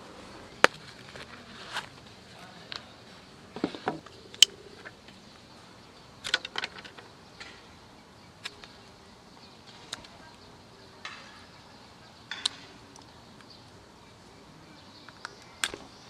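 A small folding knife scraping and clicking on a thin twig as it is whittled, in short irregular strokes with a few sharper clicks, over a faint steady high drone of insects.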